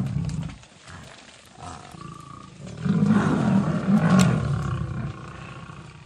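Male lions growling aggressively while confronting Cape buffalo. A loud growl is trailing off at the start, and a longer run of low, pulsing growls follows from about three to nearly five seconds in. A sharp click sounds about four seconds in.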